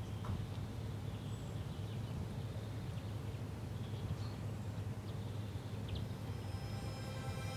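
Outdoor ambience: a steady low hum with a few short, faint bird chirps scattered through it.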